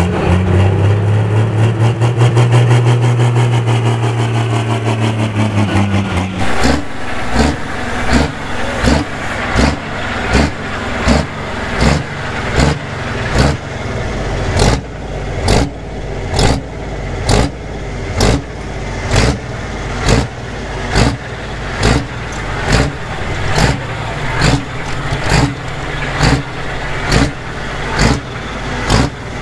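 Pro stock pulling tractor's turbocharged diesel engine running hard, its pitch swelling and then easing off. About six seconds in, a New Holland T8 pro stock's diesel takes over, blipped over and over in the 'womp womp' rhythm, about three surges every two seconds.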